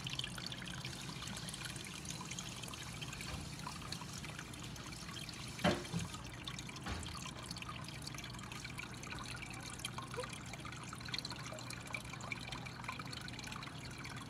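Water trickling steadily in a turtle tank, over a low steady hum. A single sharp knock comes about six seconds in.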